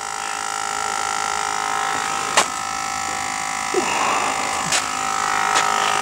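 Steady, high buzzing hum of a small motor, slowly getting louder, with a few short clicks.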